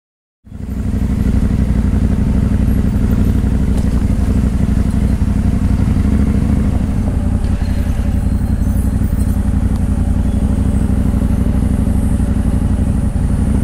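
Adventure motorcycle engine running steadily with a low, even drone, cutting in suddenly about half a second in.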